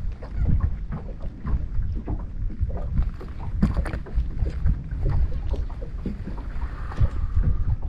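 Wind buffeting an action camera's microphone on an open boat, an uneven low rumble, with scattered light taps of rain on the camera.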